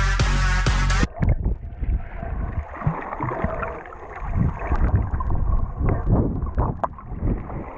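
Electronic dance music for about the first second, cutting off abruptly. Then comes the camera's own underwater sound: muffled water sloshing and gurgling around the housing, rising and falling irregularly, with a few faint clicks.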